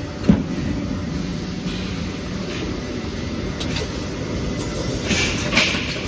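Steel grating welding machine running: a steady mechanical rumble, with a sharp knock just after the start and a brief burst of clatter about five seconds in.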